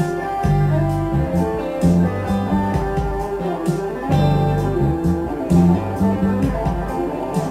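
Electric guitar playing fast single-note scale runs, three notes per string, using hammer-ons and pull-offs, over a backing track with bass and drums.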